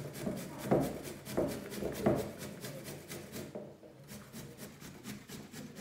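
Peeled zucchini being grated by hand on a metal box grater into a plastic bowl: quick, regular rasping strokes, with a short pause about two-thirds of the way through before the grating resumes.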